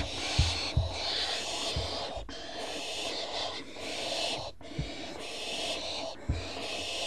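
Owls in a nest box making repeated raspy, hissing calls, each lasting about half a second to a second, with a few low thumps on the box.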